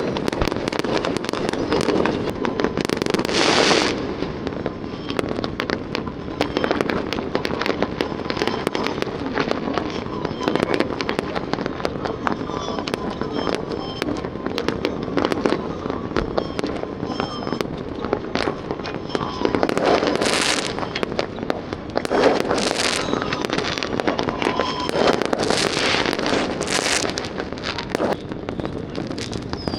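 Many fireworks going off at once: a dense, unbroken crackle of pops and small bangs, with louder bursts about three seconds in and several more after about twenty seconds. Faint whistles run through it.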